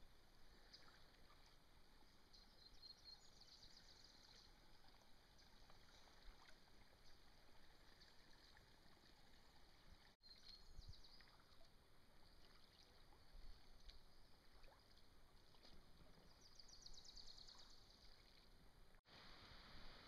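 Near silence: faint ambience of a calm creek as kayaks glide and paddle, with faint high trills three times, about 3, 11 and 17 seconds in.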